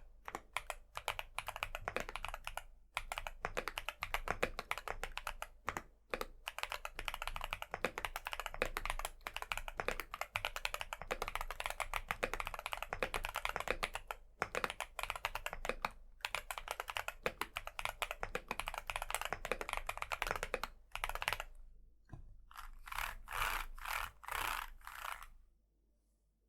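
Continuous fast typing on a mechanical keyboard fitted with MMD Princess tactile 48g switches, an aluminium plate and PBT keycaps. There is a short pause about 21 seconds in, a few more quick bursts of keystrokes, and the typing stops shortly before the end.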